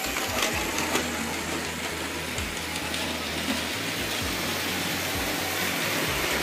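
Märklin HO model trains running on the layout's metal track: a steady rattle of wheels and motors, with a low hum and scattered light clicks.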